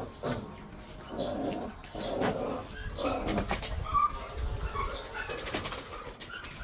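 Corgi puppies making short whimpers and yips, with snuffling and scattered sharp clicks from small dogs feeding and moving around.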